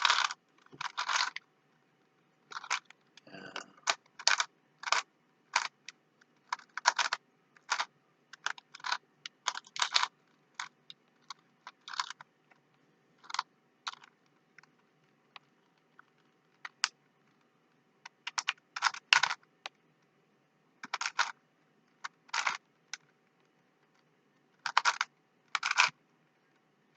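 Plastic Rubik's Cube being turned by hand: runs of short clicks and clacks as the layers are twisted, with pauses of a second or two between runs.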